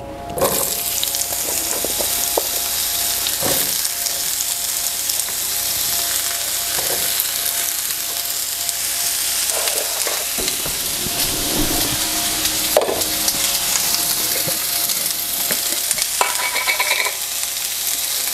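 Sliced zucchini frying in a cast iron skillet: a steady sizzle that starts as the slices go into the hot pan, with a few knocks as more slices are added.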